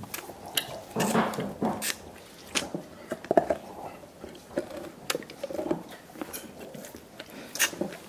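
Dogs gnawing and slurping at soup bones: irregular wet clicks and sucking, slurping noises, like the end of a milkshake through a straw.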